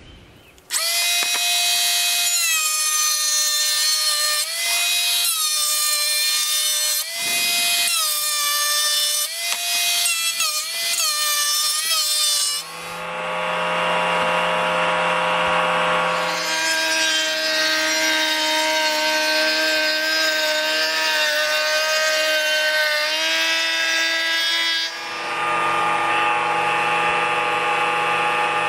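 Router in a router table running at full speed with a high whine, its pitch dipping briefly several times as the roundover bit rounds over the square edges of a particleboard panel.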